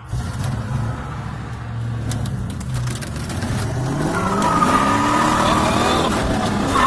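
Ford 4.6 V8 of a 1998 Mustang accelerating hard under throttle, heard from inside the car, its pitch climbing steadily from about halfway through. It pulls cleanly without stumbling now that the replacement ECU is fitted.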